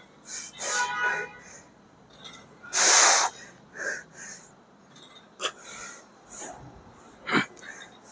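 Hard, forceful breaths, short sharp exhales one after another, from a man straining through reps of a cable chest fly. The loudest and longest exhale comes about three seconds in.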